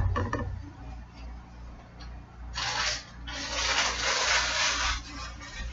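Water running from a kitchen tap in two spurts: a short one about two and a half seconds in, then a longer one of about a second and a half. A low steady hum runs underneath.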